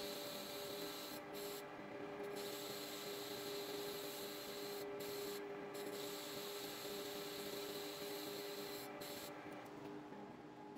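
Metal lathe running with a steady hum while a turning tool cuts a V-groove in a spinning pulley. The cutting hiss drops out briefly several times and fades near the end.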